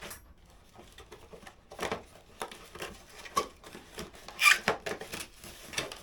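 Packaging being handled while a new angle grinder is unpacked from its box: irregular rustles, taps and knocks, the loudest a little after four seconds in.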